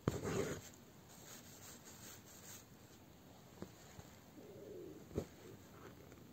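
Faint sounds of hand bead embroidery: a sharp click and a short rustle as the needle and thread are drawn through the fabric, then a few soft ticks as the bugle beads are picked up and set.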